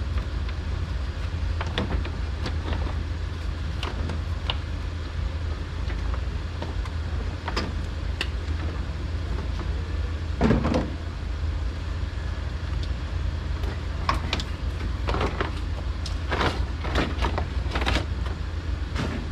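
Scattered clicks and clunks of a radiator cooling fan and its plastic shroud being worked loose and lifted out of a car's engine bay, with a louder thump about halfway through. A steady low hum runs underneath.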